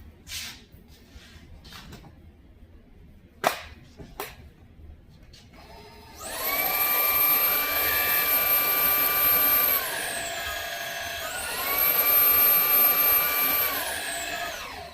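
A few clicks of handling, then about six seconds in the Homix cordless vacuum's 400 W motor starts with a high whine. It drops to a lower speed for a second or two, rises back to full speed, and winds down near the end.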